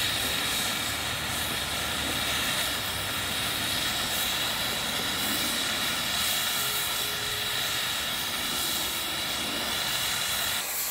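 Oxy-fuel cutting torch on a chain-mounted pipe beveler (a "pickle") cutting through steel pipe: a steady, unbroken hiss of the cutting jet.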